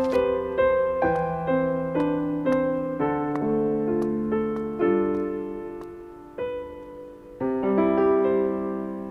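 Slow solo piano background music: broken chords played at about two notes a second, then held chords that fade away, with new chords struck about six and a half and seven and a half seconds in.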